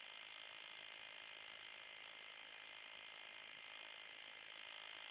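Near silence: a steady low hiss from a phone's microphone, with no distinct sounds.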